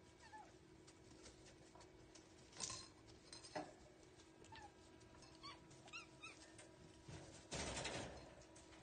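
Kittens mewing faintly: a run of short, high mews about two-thirds of the way in, with a brief burst of rustling noise near the end.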